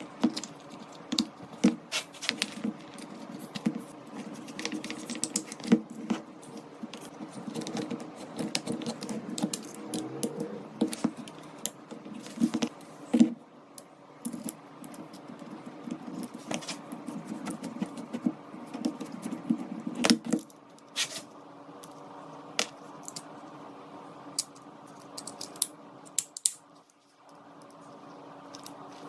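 Small metal parts of a revolver clicking and clinking as the gun is handled and worked, over a steady low hum.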